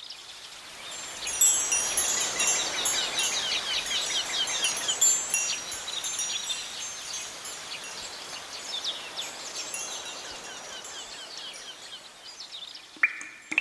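Chimes tinkling in a dense, rapid cascade of high notes over a soft hiss, thinning out toward the end, then two clear ringing pings near the end.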